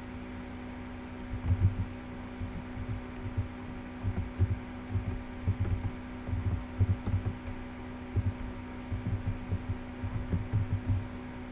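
Typing on a computer keyboard: irregular keystrokes, dull taps with light clicks, starting about a second and a half in, over a steady low hum.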